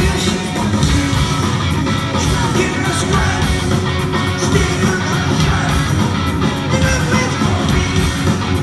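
Live alternative rock band playing loud: electric guitar, bass and drum kit with a male lead voice singing over them, picked up from the crowd.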